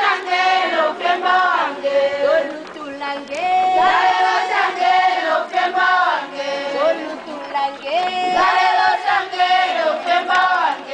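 A group of women singing a protest song together, with held notes and a short phrase that comes round again every few seconds.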